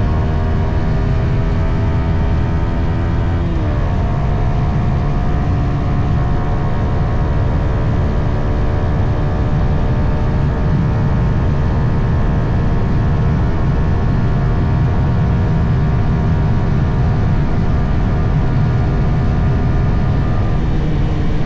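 Yamaha XSR 155's single-cylinder engine running through its stock exhaust while riding. About three and a half seconds in, an upshift drops the pitch sharply, then the engine note holds and climbs slowly, over a heavy low rush of noise.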